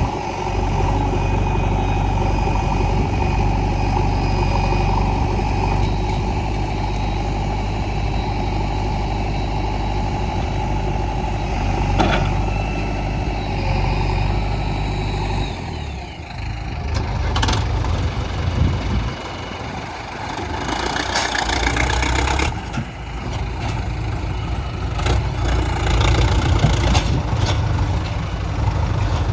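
Diesel engines of a JCB 3DX backhoe loader and a Tata dump truck running steadily, with the engine note changing about halfway through. A short hiss comes later, and there are a few knocks.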